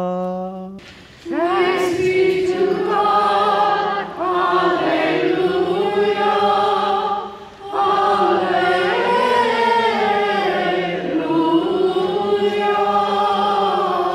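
A single chanted note ends under a second in. A group of voices then sings in church, in three phrases with short breaks between them.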